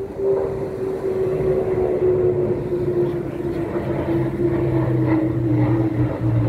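Airbus A400M's four turboprop engines droning as the plane flies low past. A steady propeller tone slides slowly down in pitch as it goes by, and a deeper hum builds from about a second and a half in.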